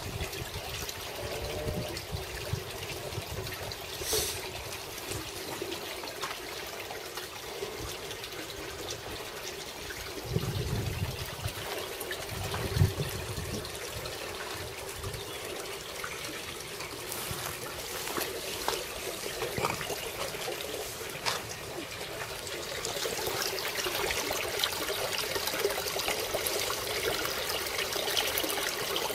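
Water trickling and splashing steadily into a garden koi pond from an inflow, a little louder near the end. A couple of dull thumps about halfway through.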